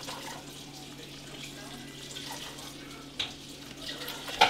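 Steady kitchen background noise: an even rushing hiss over a low hum. A sharp click sounds about three seconds in, and a louder one near the end.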